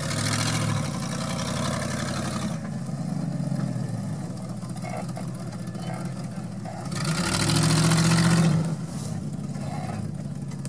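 Land Rover Discovery engine working under load off-road, revving up hard twice: once at the start and again about seven seconds in, each surge lasting a couple of seconds. Between the surges it runs at lower revs.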